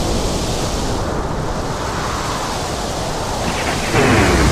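Thunderstorm outside: a steady rushing of wind and rain over a low rumble, growing louder about four seconds in.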